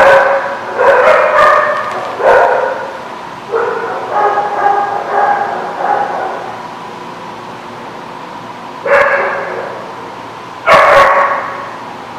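Small dogs barking and yipping while play-fighting: repeated short barks in clusters, a lull of a few seconds past the middle, then louder barks near the end.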